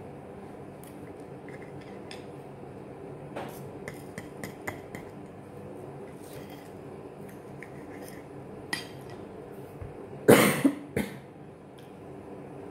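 Metal knife and fork clicking and scraping against a ceramic plate while cutting a pancake, then a loud cough near the end.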